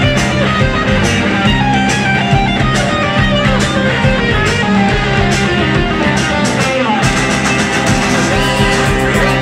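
Garage rock band playing live, electric guitars over a driving drum beat. The drumming grows busier about seven seconds in.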